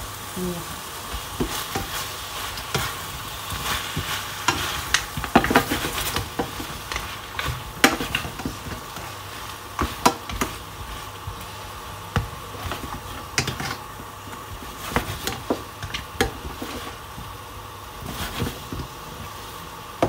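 Slotted metal spatula scraping and knocking against a stainless steel pan while seafood in sauce sizzles: irregular clicks and scrapes over a steady frying hiss.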